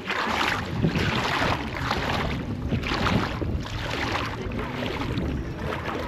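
Water splashing and lapping at a reservoir shore in irregular surges of hiss, with wind rumbling on the microphone.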